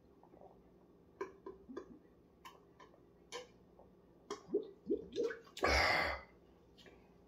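A person gulping and swallowing a sweet mixed drink from a boot-shaped glass: a run of quick, short gulps, followed about six seconds in by a short, loud rush of noise.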